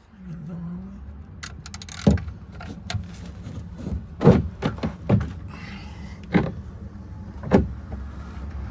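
A 17 mm wrench working the oil pan drain plug of a car, giving a run of sharp metallic knocks and clicks at uneven intervals over a steady low rumble.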